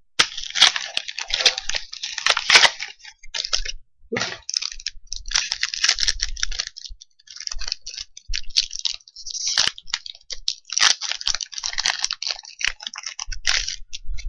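Foil wrapper of a Yu-Gi-Oh booster pack being opened by hand, crinkling and crackling in a long run of short irregular bursts.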